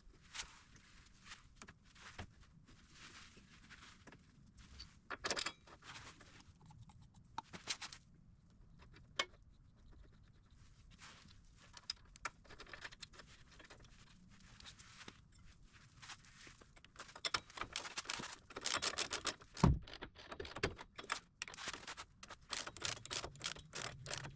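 Metal hand tools and steering hardware clinking and rattling, with scattered sharp clicks and then a quicker run of clicks over the last several seconds.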